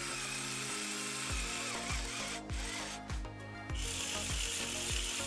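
Small Lego Technic electric motor whirring in two runs: the first lasts about two and a half seconds, and the second starts just before four seconds in with a higher whine. Background music with a steady beat plays underneath.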